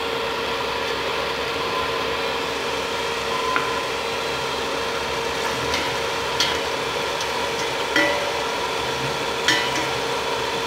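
Sliced onions sizzling steadily in hot oil in a steel pot as they start to brown, with a few sharp clicks of a metal spoon against the pot as they are stirred.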